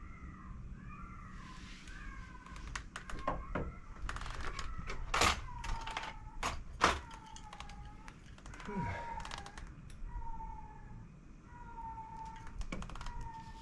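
An animal's short, high, repeated calls, about one a second, through the whole stretch, with a run of sharp clicks and knocks in the middle.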